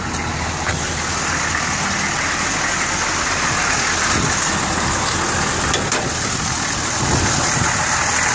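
1985 CUCV's 6.2-litre V8 diesel idling steadily, warmed up.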